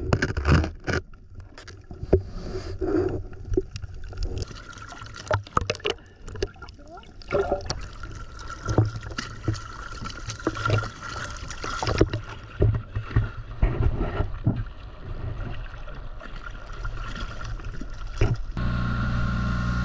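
Water splashing and sloshing around an inflatable dinghy as a snorkeler surfaces and climbs aboard, with irregular knocks and splashes against the boat. A steady low hum starts near the end.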